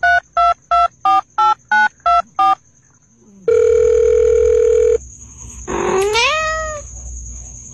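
Phone keypad dialing beeps, about three a second, a sound effect timed to a finger pressing a cat's cheeks. Then a steady telephone tone for about a second and a half, and then a cat's single rising meow.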